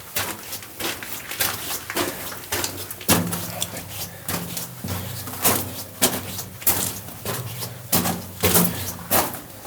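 Footsteps crunching on loose rock and gravel in a mine tunnel, about two steps a second.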